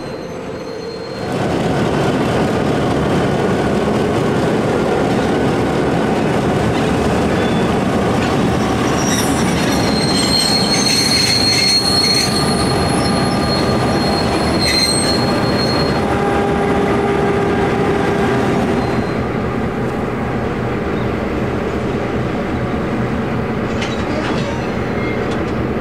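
Victorian Railways T342, an EMD two-stroke diesel-electric locomotive, rolls slowly past with other locomotives coupled behind, engines running. Its wheels give a steady high squeal for several seconds around the middle. The sound starts about a second in and gets quieter about three-quarters of the way through.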